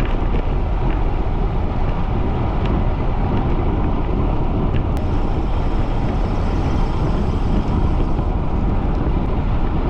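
Steady low rumble of wind and road noise on the microphone of a camera riding along on a bicycle, with one faint click about halfway through.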